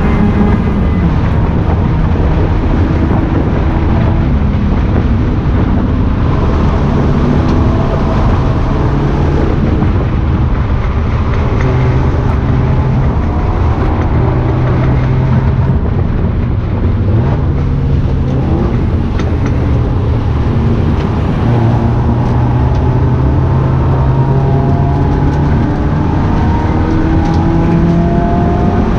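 BMW 318is four-cylinder engine running hard on a race track, its pitch climbing steadily within each gear and stepping down at shifts and lifts.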